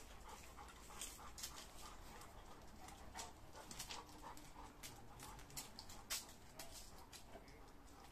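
Two dogs playing: faint panting and quick, uneven scuffs and ticks of paws on concrete.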